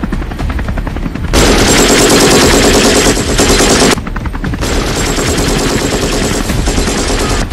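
Sustained rapid machine-gun fire, a dubbed sound effect for an attack helicopter's gun. It gets much louder about a second and a half in, then drops back somewhat about four seconds in and keeps firing.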